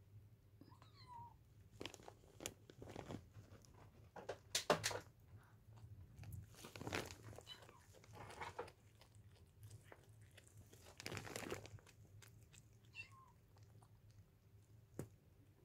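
Mother cat chewing and crunching on the remains of a stillborn kitten, in irregular bouts of crackly bites with short pauses between.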